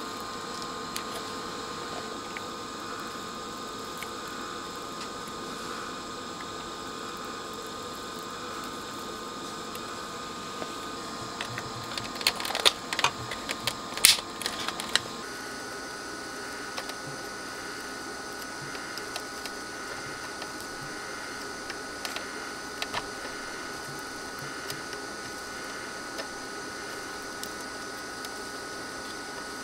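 Steady faint hum of workshop room tone. Between about twelve and fifteen seconds in, a cluster of sharp plastic clicks as a small switch is handled and pressed onto its circuit board.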